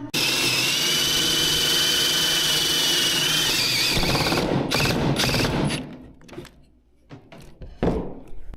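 Coffee machine running loudly with a steady high squeal for about six seconds, then dying away, followed by a few sharp clicks and knocks.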